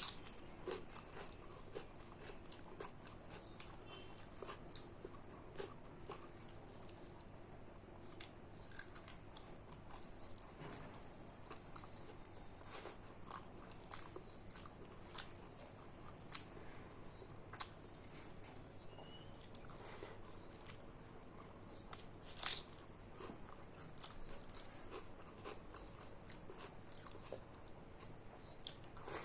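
Close-up chewing and mouth sounds of someone eating rice with fish curry, dal and pumpkin fry: a run of small, irregular clicks and smacks, with one louder smack about 22 seconds in.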